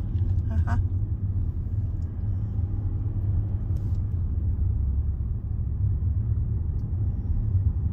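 Steady low rumble of road and engine noise inside the cabin of a moving Range Rover.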